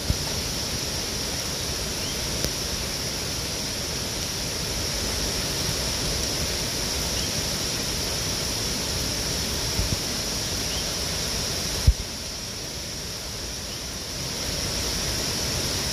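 Steady rush of a flood-swollen waterfall in spate, with one brief low thump about twelve seconds in.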